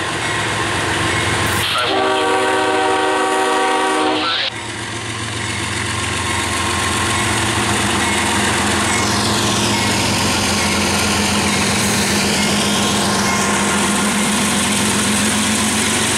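CSX GE ES40DC diesel-electric locomotive passing close by: its multi-chime air horn sounds one blast of nearly three seconds, about two seconds in. The locomotive's engine and wheels keep running past steadily after the horn stops.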